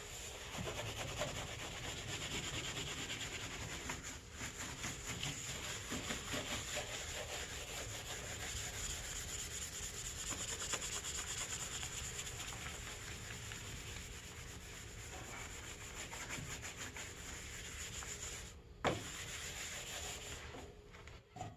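Continuous abrasive rubbing on a sign, as it is sanded or scrubbed clean. There is a brief break with a sharp knock a little before the end.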